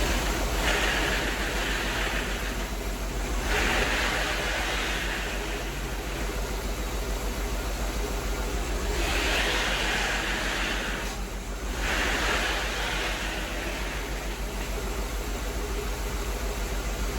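The Jeep CJ5's 4.0L inline-six engine idles steadily with an even low pulse, while a hissing rush swells and fades four times over it.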